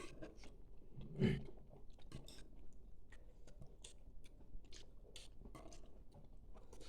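A toddler chewing a mouthful of dumpling, with scattered small clicks and light taps at the table and one louder short sound about a second in.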